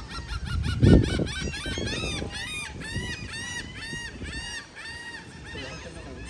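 A crowd of gulls calling over one another, many short arched cries in quick succession from several birds. A loud low rumble on the microphone about a second in.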